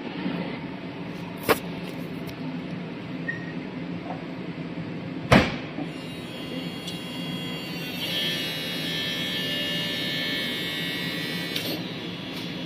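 Iveco Stralis cab-tilt hydraulics at work as the cab is lowered: a steady mechanical hum, two sharp clicks (the second the loudest), then a whine for about four seconds from about eight seconds in.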